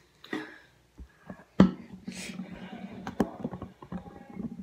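Handling noise from a phone being picked up and repositioned: a sharp knock about a second and a half in, then rubbing and small clicks against the microphone.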